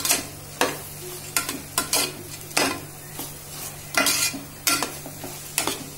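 A wooden spatula stirs and scrapes rice, dal and vegetables around the inside of a metal pressure cooker. There are about ten irregular scraping strokes, roughly two a second.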